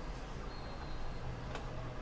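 A steady low hum, with a single short click about one and a half seconds in.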